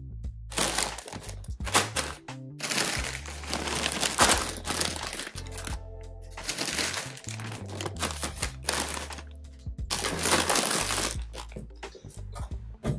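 Background music with a steady bass line, over the crinkling of plastic crisp packets being handled and set down on a wooden table.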